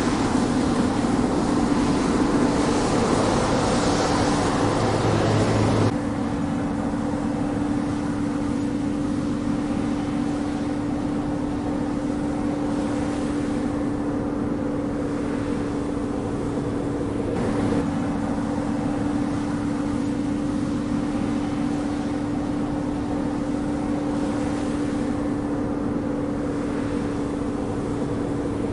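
Combine harvester running steadily, a constant machine drone with a steady hum under it. About six seconds in the sound changes abruptly and becomes quieter and less hissy, then carries on steadily.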